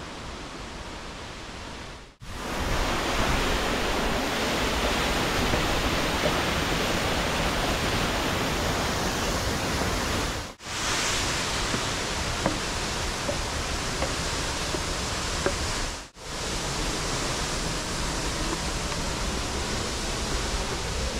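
Waterfall on the Borovniščica stream running in high water: a steady, even rush of falling water. It is quieter for the first two seconds and is broken by short dropouts about two, ten and a half and sixteen seconds in.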